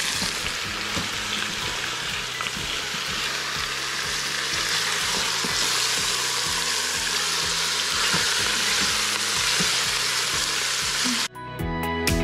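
Pork rib chunks sizzling steadily in hot oil in an Instant Pot's stainless inner pot, browning while they are stirred and turned with a silicone spatula. The sizzle cuts off abruptly near the end, and music with a beat takes over.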